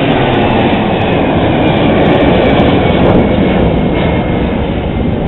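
Airbus A319's twin jet engines at takeoff thrust as the airliner climbs out: a loud, steady rumbling roar with a thin high whine that weakens toward the end.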